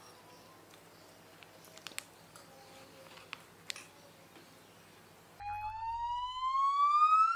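A metal spoon digging into a foil baking tray, giving a few faint clicks and scrapes. About five seconds in, a whistle-like sound effect begins and rises steadily in pitch, much louder than the clicks.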